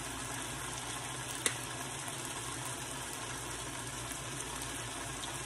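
Chicken fajita strips and bell peppers sizzling steadily in a frying pan on the stove, with one sharp click about one and a half seconds in.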